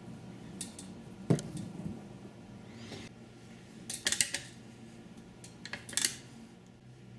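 Embroidery thread and needle being drawn through fabric stretched taut in a hoop, and the hoop being handled: a series of short scratchy rasps and clicks, with a sharp tap about a second in and quick clusters of rasps about four and six seconds in.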